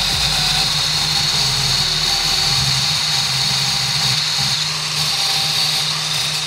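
Angle grinder running at speed, its wheel grinding the tip of a steel hex-shank bit to a point: a steady high whine over a low hum.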